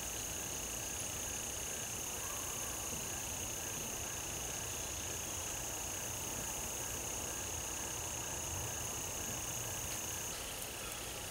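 Insects droning steadily at a high pitch, with a fainter chirp repeating about three times a second beneath. The high drone stops about ten seconds in.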